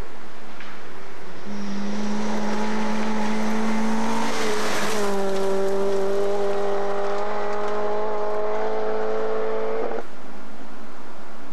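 A rally car approaching at high revs on a gravel road. It passes close by about five seconds in with a rush of tyre and gravel noise and a sudden drop in engine pitch, then pulls away still at high revs until the sound cuts off near the end. A steady tape hiss lies underneath.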